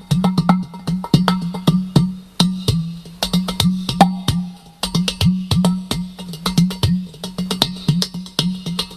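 Udu, a clay pot drum, played by hand in a quick, busy rhythm: sharp taps on the pot's body over a deep hollow bass tone whose pitch bends downward on many strokes.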